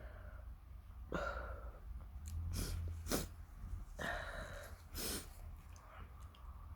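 A person's sharp, noisy breaths and sniffs that go with sneezing, four in all, the strongest about three seconds in.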